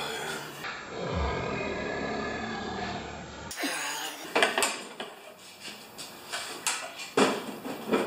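A man's drawn-out vocal groan lasting about three seconds, followed by several sharp metallic clanks and knocks of tools and parts.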